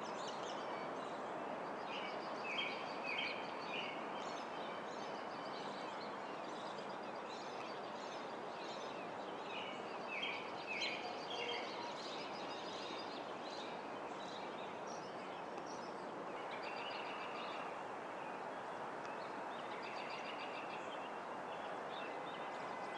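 Steady outdoor background hum with small birds calling over it: two short series of three or four chirps, about two seconds and ten seconds in, and fainter, higher twittering later on.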